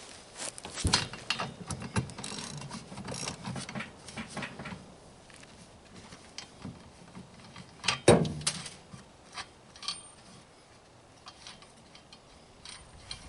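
Metal hand tools being handled and clicking: a quick run of clicks and clatter over the first few seconds, a single loud knock about eight seconds in, then scattered light clicks.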